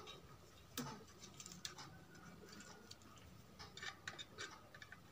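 Faint, scattered clicks and light ticks of wires being handled on a CRT TV chassis.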